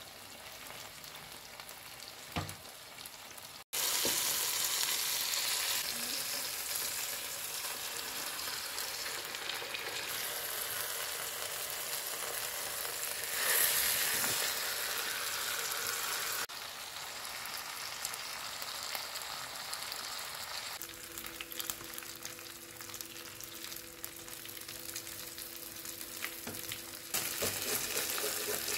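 Food sizzling as it fries in a pan, with stirring, cut into several short takes that change abruptly in level. A steady low hum joins about two-thirds of the way in.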